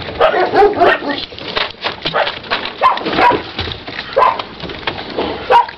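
Several puppies squeaking and whimpering in short high calls as they jostle to eat from a food bowl, with frequent small clicks and scuffs of feeding and moving in the box.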